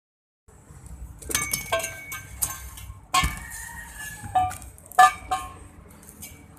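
Metal striking metal: irregular clanks, each leaving a short ringing tone, the loudest about three seconds and five seconds in, over a low background rumble.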